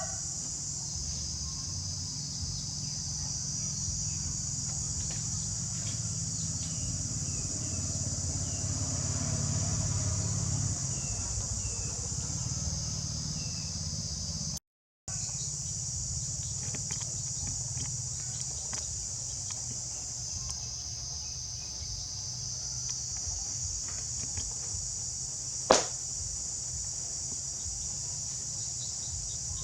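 Steady high-pitched insect chorus over a low rumble. The sound cuts out completely for a moment about halfway, and a single sharp click stands out near the end.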